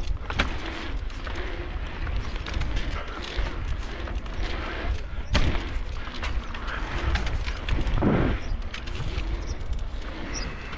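Mountain bike riding fast over an asphalt pump track: heavy wind buffeting on the camera microphone with tyre noise, and sharp knocks and rattles from the bike over the rollers, the loudest about half a second in, about five seconds in and about eight seconds in.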